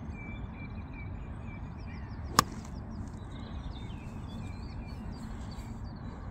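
A pitching wedge striking a golf ball: one sharp click about two and a half seconds into a full swing.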